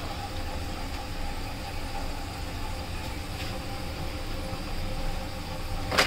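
Potato chips sizzling in hot oil over a low rumble, as they are scooped out and drained; a sharp clink about six seconds in. The crisp sound is the sign the chips have fried crispy.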